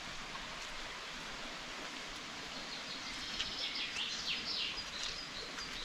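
Woodland birds singing over a steady outdoor hiss, with a run of quick falling notes a little past halfway.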